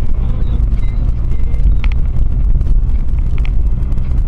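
Steady low road and engine rumble inside the cabin of a moving Renault Megane 1.5 dCi four-cylinder turbodiesel, with two brief high clicks near the middle.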